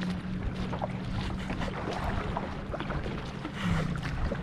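Water lapping and splashing against a kayak's hull, with small paddle splashes and wind, over a steady low hum.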